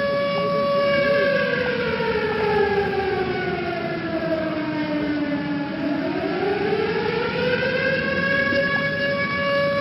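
Tornado warning siren sounding a test, a loud steady tone with strong overtones. About a second in, its pitch slides slowly down for about five seconds, then climbs back up to the steady tone.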